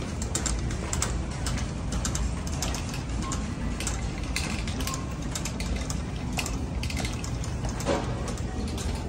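Wire shopping cart rattling and clicking as it is pushed along, with a steady low rumble from its rolling wheels.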